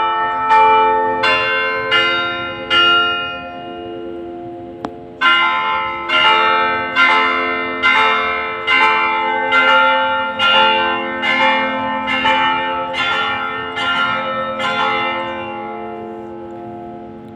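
Church bells ringing in a quick run of strikes, less than a second apart, in several pitches. The strikes stop about three seconds in while the ringing dies down, start again a little after five seconds, and give way to ringing that fades near the end.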